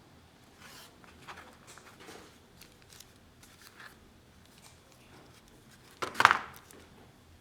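Packaging being handled during an unboxing: scattered soft rustles and light taps, then one short, much louder crackle of packaging about six seconds in.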